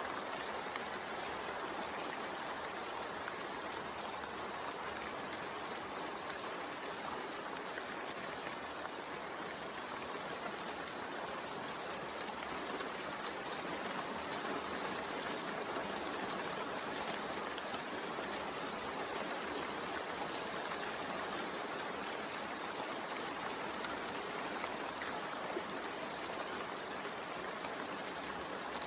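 Steady rain, an even hiss that holds unchanged throughout.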